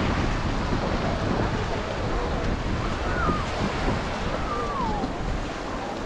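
Surf washing onto a sandy beach in a steady rush, with wind buffeting the microphone and faint voices of people around.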